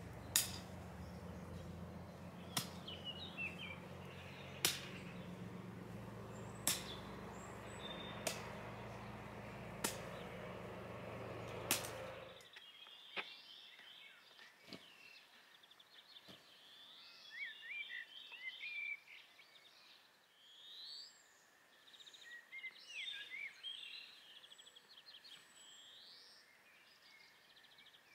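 A long-handled garden tool chopping into the ground, seven sharp knocks about every two seconds, with a low steady rumble behind. About twelve seconds in the knocks and rumble stop, and birds chirp and sing.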